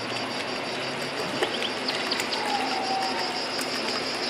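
Steady, rapid cricket-like chirping over an even background din, with scattered light clicks.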